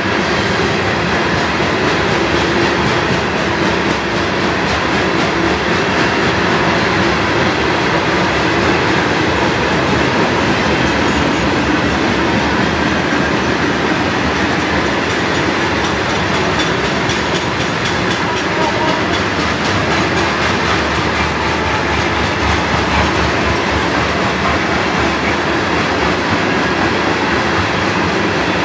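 CSX freight train's covered hoppers and boxcars rolling steadily past close by, steel wheels clicking over the rail joints under a continuous rumble and rattle.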